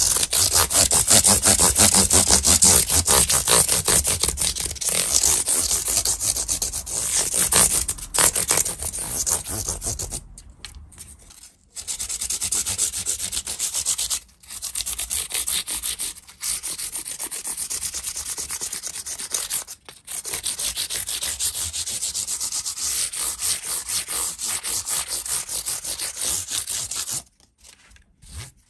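A fret rubber, an abrasive rubber block, scrubbed in fast back-and-forth strokes over the metal frets of a taped-off Squier Stratocaster neck, polishing out the scratch marks left by fret files. The rubbing breaks off briefly a few times midway and stops about a second before the end.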